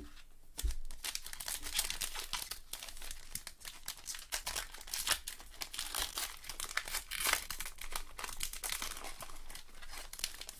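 Plastic trading-card pack wrapper being opened and crumpled in the hands: a dense, irregular crinkling crackle.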